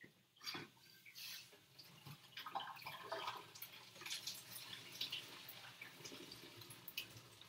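Water being poured off a pot of cooked noodles into a sink, faintly splashing and dripping, with a few small knocks of the pot.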